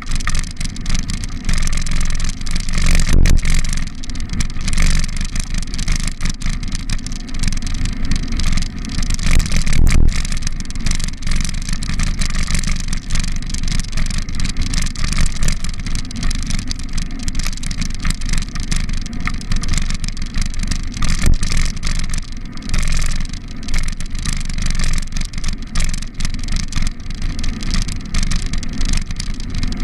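Steady rumble and wind noise of a bicycle ride, heard through a camera moving along a brick-paved cycle path, with car traffic on the road alongside. Two louder jolts come about 3 and 10 seconds in.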